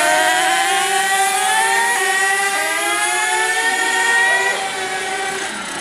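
Radio-controlled monster truck's motor running at high revs, a steady high-pitched whine that rises slowly in pitch, then fades away about five seconds in.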